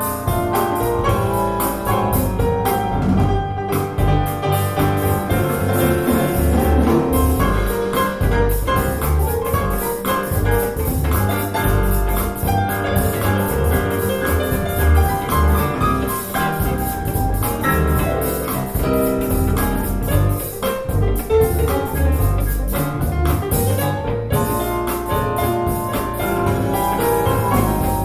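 Piano-led music with bass and light drums, played back through a pair of Bowers & Wilkins 707 S2 bookshelf speakers as a listening demo.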